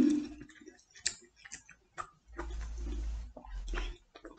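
A person drinking beer from an aluminium can: a short loud sound right at the start, a few light clicks, then about a second and a half of soft gulping and swallowing noise.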